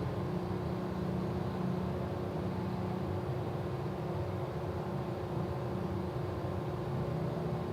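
Steady low mechanical hum with a few constant tones, like a motor or engine running, and no voice.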